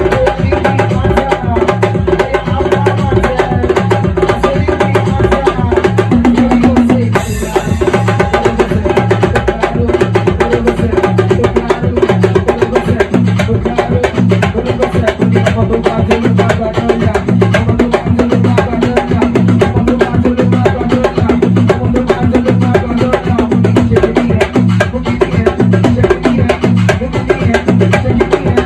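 Music driven by fast, busy drumming over a steady bass line.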